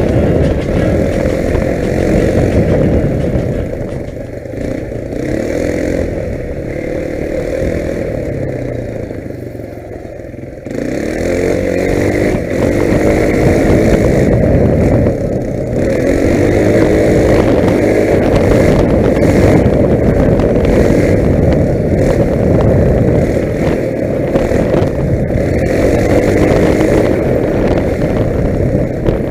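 Quad bike (ATV) engine running under way on a dirt track. It eases off and quietens a few seconds in, then about ten seconds in the throttle opens again and the engine revs up and holds a steady, loud run.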